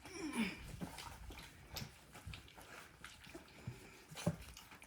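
Three-week-old North American Mastiff puppy whimpering, with a short falling whine near the start. Scattered small clicks follow, with a sharper knock a little after four seconds in.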